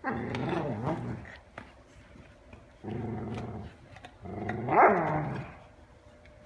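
Dog growling in three drawn-out vocal bursts, the pitch sliding up and down; the last, about four and a half seconds in, rises and falls and is the loudest.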